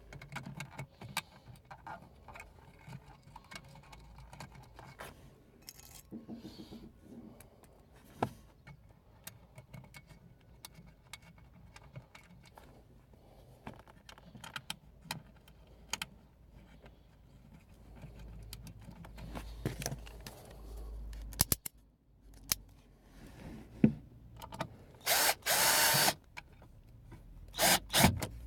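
Clicks and knocks of a car speaker being handled and seated in its mounting, then near the end a cordless drill-driver set on low torque running in short bursts, driving in the speaker's screws.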